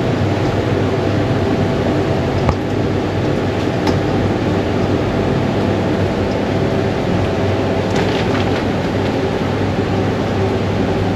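Steady mechanical hum and rushing air of a kitchen ventilation fan, with a few faint clicks and taps from the seasoning work.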